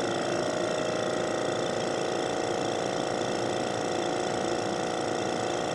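Vacuum pump running steadily with an even mechanical hum, pulling suction through a Büchner funnel and filter flask during vacuum filtration.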